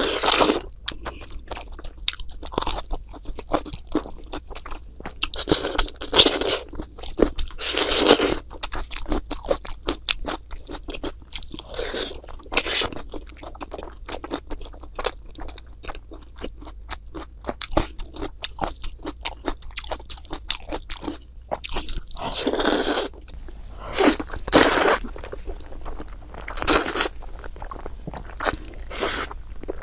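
Close-miked eating: steady chewing with many small wet mouth clicks, and louder crunchy bites every few seconds.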